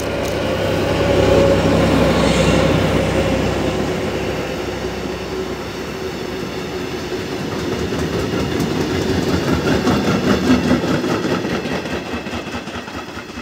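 SU45 diesel locomotive passing with a freight train of covered wagons: the locomotive's engine peaks a second or two in, then the wagons roll by with a rhythmic wheel clickety-clack that fades near the end.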